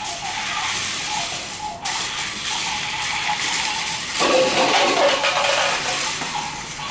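Small electric motor of a remote-control toy vehicle whirring as it drives, with a steady whine under a noisy rattle that grows louder and rougher about four seconds in.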